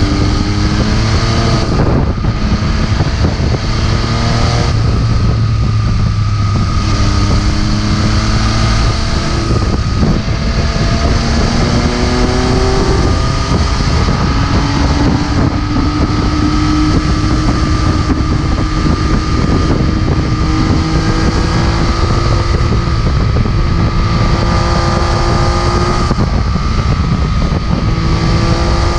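MV Agusta F3 675's 675 cc inline three-cylinder engine under way, heard from the rider's position: its note climbs under throttle and drops about two, five, ten and thirteen seconds in, then climbs slowly for a long stretch before another drop near the end. Wind rushes over the microphone throughout.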